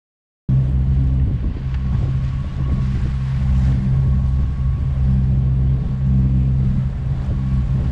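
A sailboat's inboard engine running steadily as the boat motors under way, with water noise along the hull. The sound starts abruptly about half a second in.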